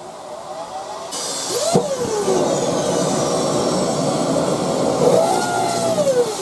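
Dirt Devil vacuum cleaner's motor spinning up and running loudly, its whine rising and falling in pitch, with a rushing airflow noise.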